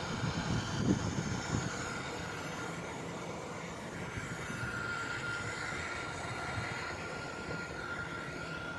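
Narrow-body twin-jet airliner's engines running at low taxi power: a steady rushing noise with a thin high whine held on one pitch. There are a few low thumps in the first two seconds.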